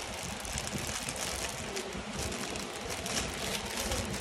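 Clear plastic bag crinkling and rustling as fingers handle the watch sealed inside it, a dense run of small irregular crackles.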